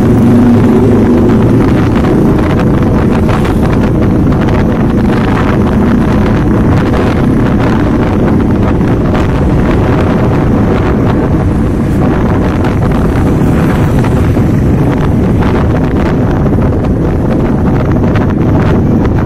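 Wind buffeting the microphone on a moving motorcycle, over the steady running of the motorcycle's engine and tyres on the road.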